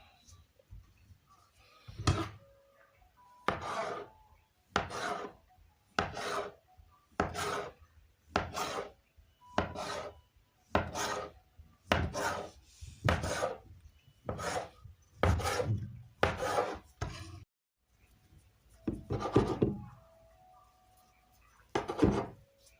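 A wooden rolling pin rolling out stiff noodle dough on a wooden board, in about a dozen even strokes a little over a second apart. After a short pause there are two more strokes.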